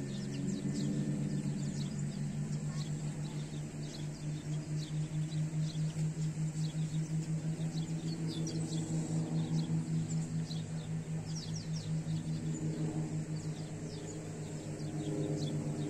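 Small birds chirping repeatedly over a steady low drone that pulses rapidly.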